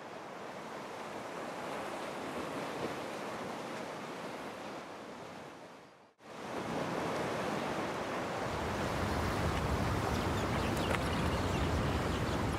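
Sea surf washing ashore, a steady hiss of waves that fades out about halfway through, then fades back in fuller and deeper.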